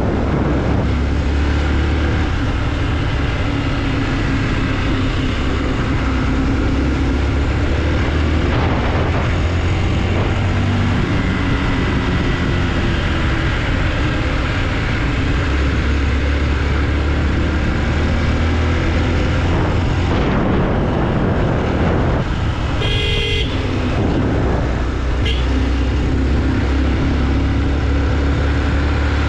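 Motorcycle running at road speed with a steady low rumble. About three-quarters of the way through a horn toots for about a second, with a brief second toot soon after.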